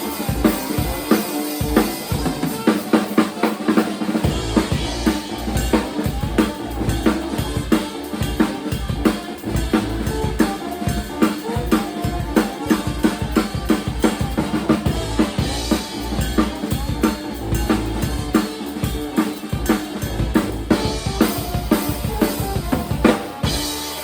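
Live band playing, with the drum kit to the fore: a steady beat of kick drum, snare and rimshots over pitched instruments.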